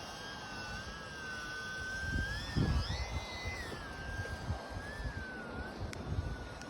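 Ultra-micro RC plane's electric motor and propeller whining, the pitch rising for a few seconds near the middle and then easing back with the throttle. Gusts of wind buffet the microphone throughout.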